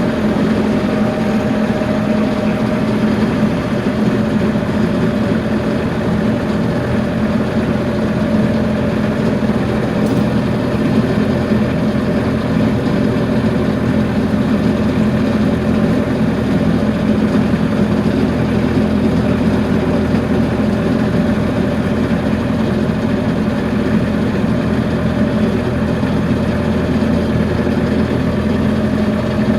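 A motor running steadily at constant speed, with an even, unchanging hum.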